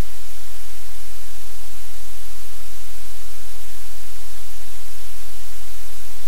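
Loud, steady static hiss with a low hum underneath, unchanging throughout; no other sound stands out.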